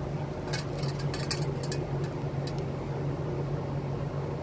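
Short clicks and rustles of gloved hands handling a new brake wheel cylinder and a shop rag, bunched between about half a second and two seconds in, with one more click a little later. A steady low mechanical hum runs underneath throughout.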